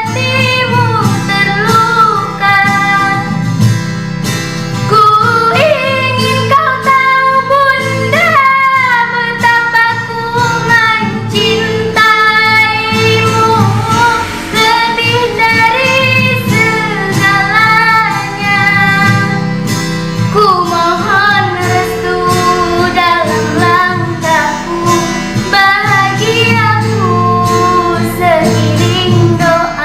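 A young girl singing a slow ballad solo, her voice wavering and sliding between notes, over a karaoke backing track with guitar.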